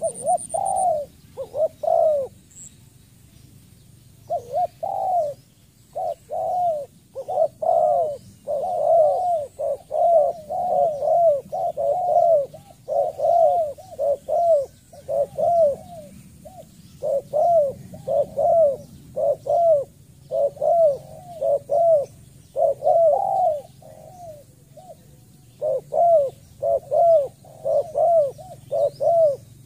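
Spotted dove cooing: a long series of short, arching coo notes, about two a second, with a couple of brief pauses.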